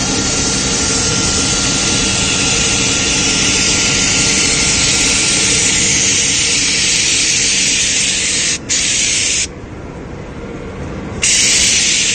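Spray gun hissing steadily as white elastomeric roof coating is sprayed, over a steady machine hum. The spray stops for a moment shortly before 9 s, then for about two seconds near the end before starting again.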